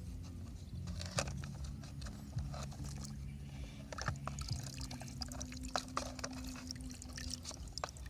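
Small electric motors of toy RC construction vehicles whirring in steady low tones that shift in pitch now and then, with scattered sharp clicks and a trickling, pouring sound.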